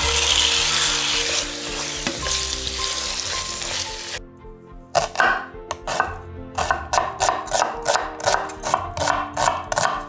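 Diced raw chicken breast sizzling as it is tipped into a pan of hot oil, for about four seconds. After a brief lull, a knife chops shallots on a wooden cutting board in quick, regular strokes, about three to four a second. Background music plays under both.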